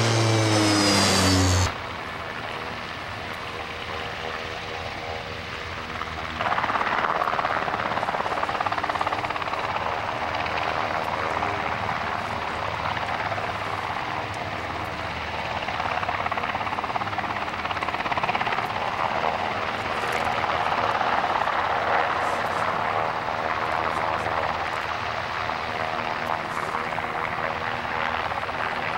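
A Mitsubishi MU-2S twin-turboprop rescue aircraft passes close overhead, its propeller drone falling in pitch, and cuts off abruptly under two seconds in. Then a UH-60J rescue helicopter's turbines and rotor are heard, growing louder about six seconds in and running steadily.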